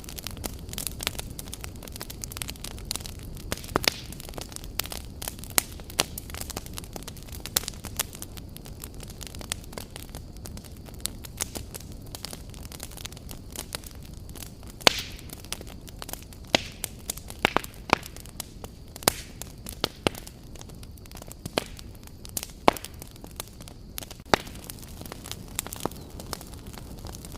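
Wood fire burning steadily, with a constant low rumble and frequent irregular crackles and pops of burning logs, a few of them louder.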